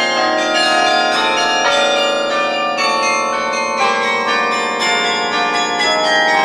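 The Sather Tower carillon being played, heard close up at the top of the tower: its bronze bells are struck in quick succession, and many notes ring on over one another.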